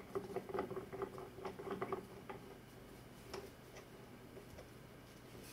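Stop fitting being screwed by hand into a threaded 1/4-inch port of a water-cooling pump top: a quick run of faint small clicks and ticks, thinning out after about two seconds to a few isolated ticks.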